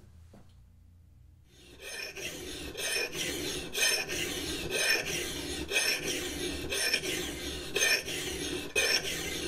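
A 12-inch double-cut hand file rasping across the steel bit of a vintage Hunts Bruk double-bit axe, in steady back-and-forth strokes about once a second. It starts a little under two seconds in, after a short quiet, and is removing metal to reshape the edge.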